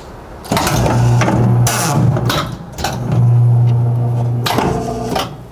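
Triumph 5260 guillotine paper cutter making a cut: its drive motor starts about half a second in and hums steadily in two long stretches, with knocks and a short rushing noise between them as the blade goes down through the paper stack and back up. It stops near the end.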